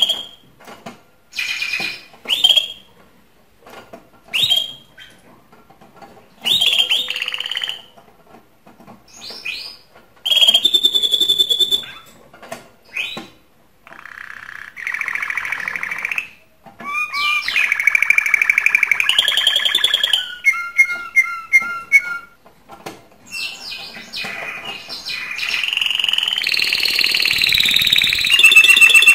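Male domestic canary singing its courtship song, a sign of a bird in breeding condition. It begins with short separate chirps and calls, then moves into longer phrases of rapid repeated notes and rolling trills, singing almost without pause near the end.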